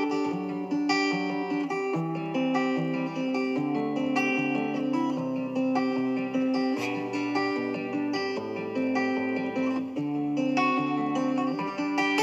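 Background music led by plucked guitar, with strummed notes, playing without a break.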